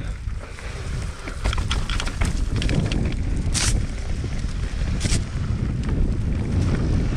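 Wind buffeting the microphone as a mountain bike rolls downhill on a trail, with scattered clicks and rattles from the bike and trail. Two short hisses come about three and a half and five seconds in.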